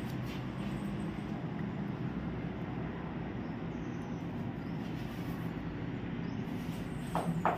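Steady low rumbling background noise with a faint hum, and two brief squeaky sounds near the end.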